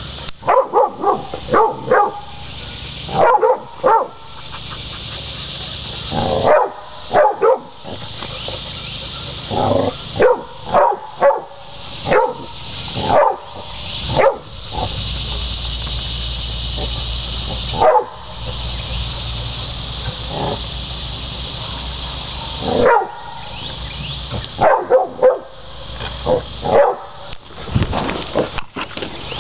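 Catahoula cur dogs barking in quick runs of several barks with short pauses between, baying hogs. Around the middle the barking stops for a few seconds and a steady hiss takes over.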